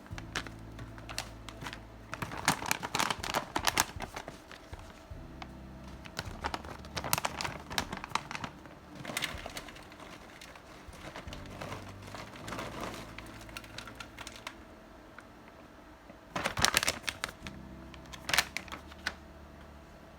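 Handling noises while camera gear and a bag of hemp flower are moved and set up: several bursts of clicks, knocks and crinkling. The loudest bursts come about two to four seconds in and again about sixteen and a half seconds in, with a faint low hum between them.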